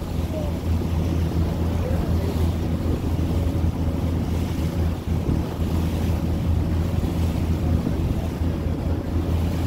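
Passenger ferry's engine droning steadily under way, with water rushing along the hull and wind buffeting the microphone.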